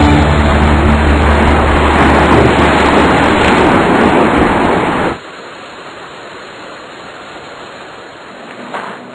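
A loud, steady rushing roar with a low drone underneath, which cuts off suddenly about five seconds in to a much quieter steady hiss. Two brief louder sounds come near the end.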